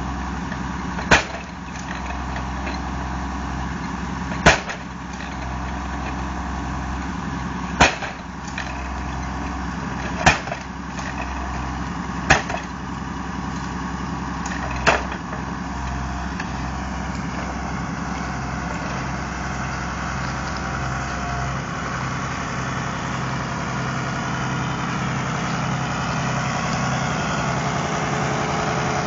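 Tractor-mounted post driver's hammer striking a wooden fence post six times, a few seconds apart, over the tractor engine running steadily at idle. The blows stop about halfway in and the engine runs on, slowly getting a little louder.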